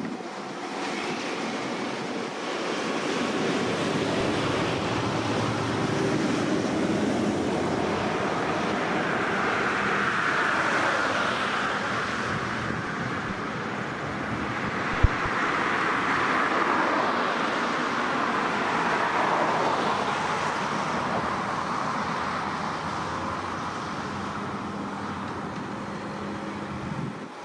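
A long rolling vehicle rumble that builds over the first few seconds, swells twice through the middle and eases off near the end, with one sharp click about halfway through.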